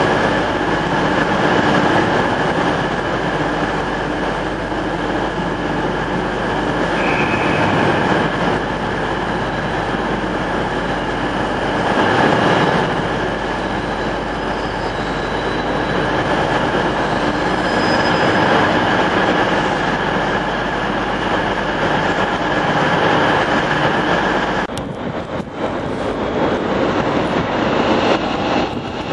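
Suburban passenger train running past along the platform: a steady rumble of wheels on rails with a high steady tone over it. The tone drops away about 25 seconds in as the train clears.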